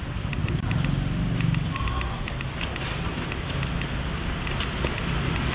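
Busy city street ambience: motor traffic running close by, with a rapid light ticking over it.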